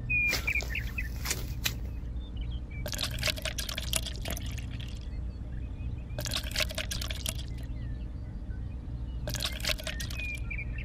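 Coloured granules poured from a small tin bucket onto soil, heard as three hissing pours a few seconds apart, over a steady low hum.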